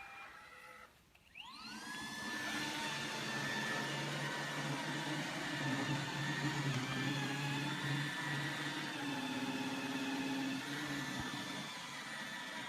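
iRobot Roomba 880 robot vacuum's motors spinning up with a rising whine about a second in, then running steadily: a high, even whine over a whirring hum as it cleans.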